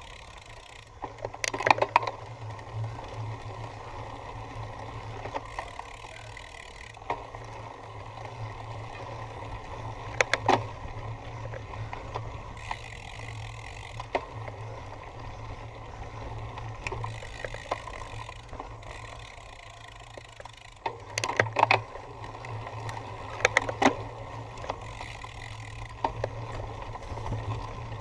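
Cyclocross bike being ridden over rough ground: a steady rumble with sharp rattles and knocks from the bike, in clusters about two seconds in, around ten seconds, and several between about 21 and 24 seconds.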